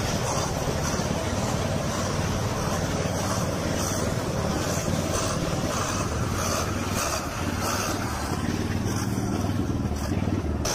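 A vehicle engine running steadily, a low even hum under a rushing noise.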